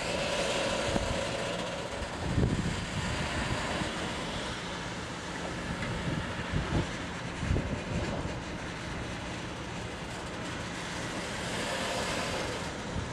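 Freight train of flat wagons loaded with sleepers rolling slowly past: a steady rumble of wheels on rail, with a few short low thumps.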